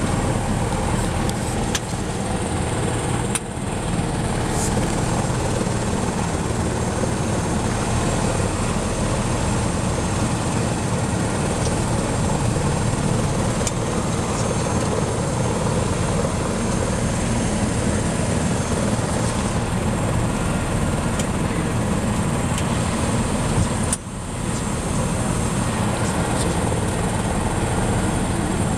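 Tour helicopter running steadily on the ground, a continuous engine and rotor noise with a thin high turbine whine over it. The level drops briefly twice, a few seconds in and near the end.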